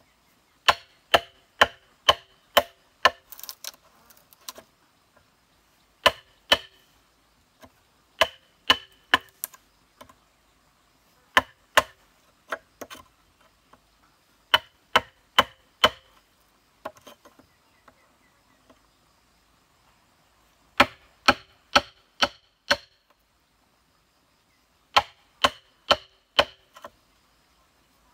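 A steel chisel is driven into a thick green bamboo pole by blows from a flat wooden club, cutting a rectangular mortise. The knocks are sharp and come in bursts of four to six, about two a second, with pauses between bursts. Each knock rings briefly.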